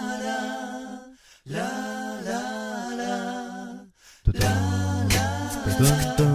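Music: a wordless sung vocal line in two phrases over sustained low notes, each phrase breaking off briefly. A beat with sharp percussive hits comes in about four seconds in.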